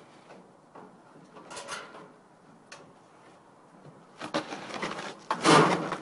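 Sheet metal of an opened-up clothes dryer scraping and rattling as its parts are pulled apart by hand: a short scrape about a second and a half in, then louder scraping and clattering from about four seconds, loudest near the end.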